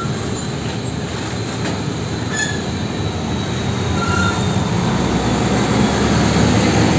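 Hino diesel fuel tanker trucks driving past on a road: a steady rumble of engines and tyres that grows slowly louder.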